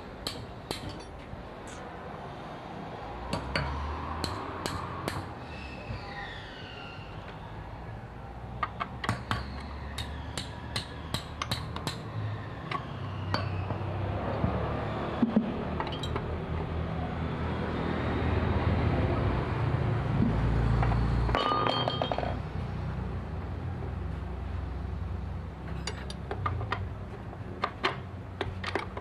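Metal parts and hand tools clinking and tapping on a 15 hp outboard motor's steering neck while the upper neck bushing is fitted and the neck cleaned of rust. A steadier rubbing noise builds up in the middle and stops abruptly about two-thirds of the way through.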